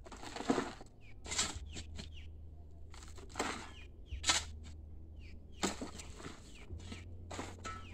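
Metal spade scraping and digging into loose soil, about six scoops spread a second or two apart.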